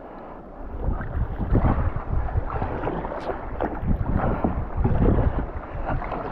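Wind gusting over the microphone in uneven surges, growing stronger about a second in, with the splash of kayak paddle strokes and choppy water against a sea kayak.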